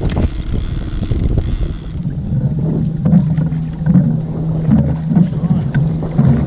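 Wind rushing over the microphone at first. After about two seconds an Evinrude outboard motor idles with a steady low hum that swells unevenly.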